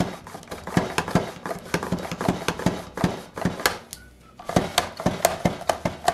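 Pampered Chef Rapid Prep mandoline slicing potatoes paper-thin: the plunger is pushed down over and over, each stroke a sharp clack of the blade cutting through potato, about three a second. There is a brief pause about four seconds in.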